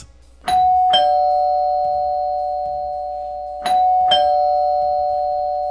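Two-tone doorbell chime, ding-dong, rung twice about three seconds apart, each note ringing on and fading slowly: the sound of trick-or-treaters at the door.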